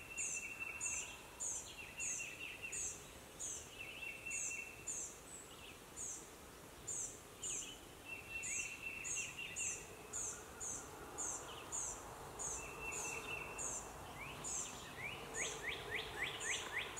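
Faint woodland songbirds calling. A thin, high chirp repeats about twice a second, with short trills lower down, and a quick run of falling notes comes near the end.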